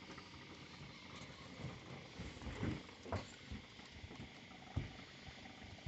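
A few soft, scattered knocks and bumps on a boat over a steady low hiss, the clearest in the middle and near the end.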